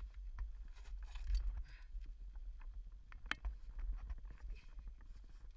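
Irregular knocks, scuffs and rustling of someone moving, over a low rumble of handling noise. One sharper click comes about three seconds in.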